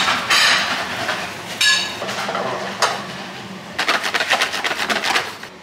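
Cream being whisked by hand in a stainless steel bowl, the whisk clinking rapidly against the metal for a second or so near the end. Earlier come scattered clinks and knocks of cookware.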